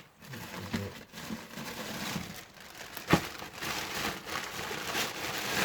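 Plastic parts bags crinkling and rustling as they are handled and opened, with a sharp click about three seconds in.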